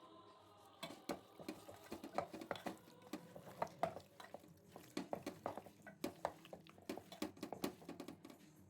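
A spoon clinking and scraping in a bowl as ingredients are stirred and mixed, with irregular knocks several times a second starting about a second in.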